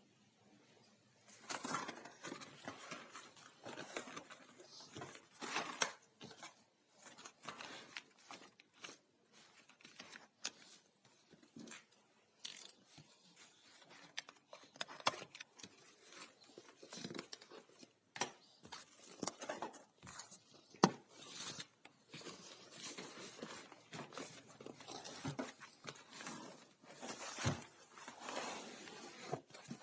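A parcel of books being unboxed: irregular tearing, rustling and crinkling of packaging, with scattered sharp clicks and knocks as it is handled. It starts about a second and a half in.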